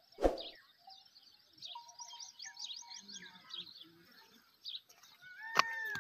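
Small birds chirping and twittering in the background, with one brief loud thump about a quarter of a second in. Near the end a louder repeated call with a rising-then-falling tone starts up.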